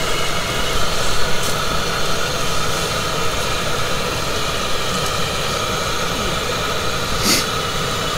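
Gas stove burner running under a pot of soup with a steady hiss. A short click about seven seconds in.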